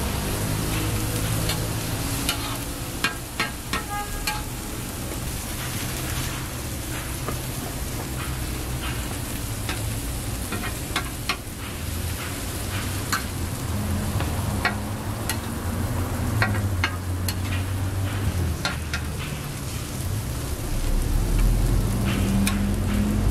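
Butter and egg-and-vegetable omelette patties sizzling on a hot flat griddle, with scattered sharp pops and clicks over a steady frying hiss and a low hum underneath.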